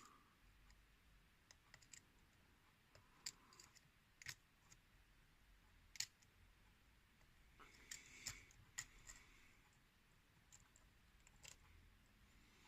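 Faint, scattered clicks and ticks of a lock pick probing the pins inside a custom challenge lock under a tension wrench, searching for the next binding pin; the sharpest click comes about halfway through.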